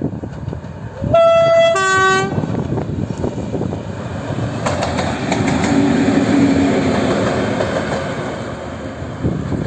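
PKP Cargo ST44 diesel locomotive sounding its two-tone horn about a second in, a short high note then a short lower one. It then passes close with its two-stroke V12 diesel engine running loud, loudest mid-way, and its wheels clattering over the rail joints.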